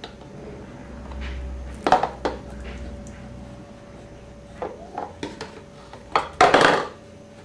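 A plastic cup knocking and clattering against a kitchen sink as a baby handles it: a few sharp knocks, then a longer, louder clatter near the end.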